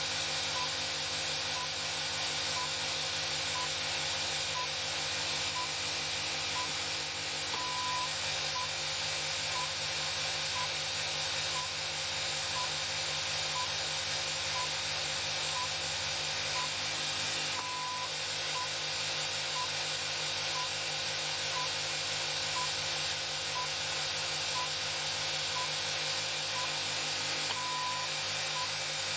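A steady electrical hum and hiss, with a short, high electronic beep about once a second and a longer beep about every ten seconds, like a timer or metronome ticking off seconds.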